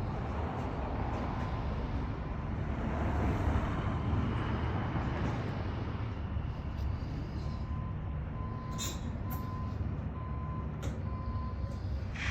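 A heavy vehicle's engine runs with a steady low rumble. From about seven and a half seconds in, a backup alarm sounds a series of short, evenly spaced beeps, and a few sharp knocks come through near the end.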